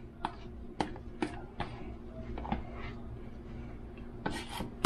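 Serving spoon clicking and knocking against dishes while mashed potatoes are scooped onto a plate: a few sharp taps spaced about half a second apart, then a quick run of them near the end, over a faint steady hum.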